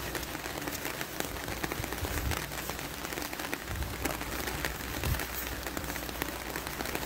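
Steady crackling patter of fine ticks, with a few dull low thumps about two seconds in and again about four to five seconds in.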